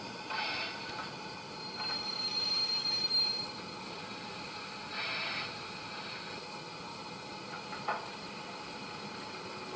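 Sound decoder in a Hornby OO-gauge BR Standard Class 2MT steam locomotive model playing its sounds through the model's speaker as the goods train draws to a stand: a single high squeal of the brakes for about two seconds, then a short hiss about five seconds in and a brief click near the end, over a steady background hiss.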